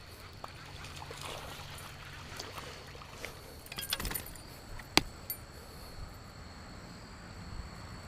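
Landing and handling a small bass: water splashing and dripping with scattered rustles and clicks, a cluster of sharp noises near four seconds and one sharp click about five seconds in, over a faint steady high whine.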